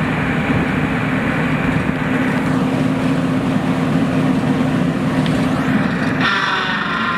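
Engine of an ASV PT100 forestry tracked skid steer running steadily. About six seconds in, the low engine tone drops away and a higher whine takes over.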